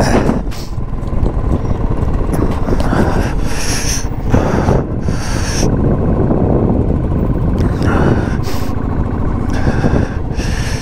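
A motorcycle on the move, with heavy wind noise rumbling on the microphone and rising in uneven gusts every second or so.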